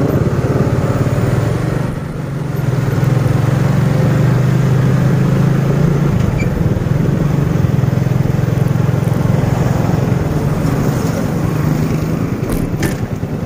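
Motorcycle engine running steadily as the bike is ridden along a road, with road and wind noise. The engine eases off briefly about two seconds in, then picks up again.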